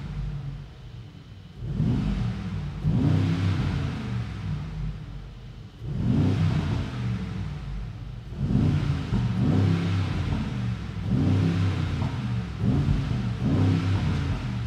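Mercedes-AMG G63 4x4² V8 blipped repeatedly in neutral, heard from inside the cabin. There are about seven or eight short revs, each rising and falling back, with the engine settling to idle between them.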